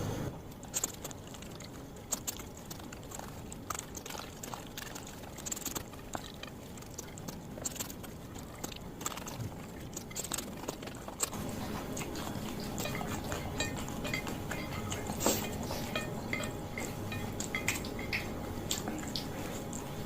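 Close-miked chewing of fried noodles: irregular wet smacks and clicks of the mouth, with the occasional clink of a utensil or dish.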